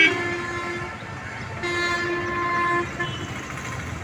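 Vehicle horns honking over steady traffic noise: a loud short blast right at the start that trails off within a second, then a longer held honk of about a second midway, with a brief toot just after.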